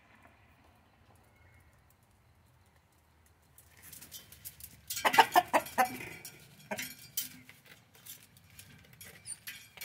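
Rooster flapping its wings as it flies up onto a metal gate, then a loud burst of squawking and clucking about five seconds in, followed by shorter clucks.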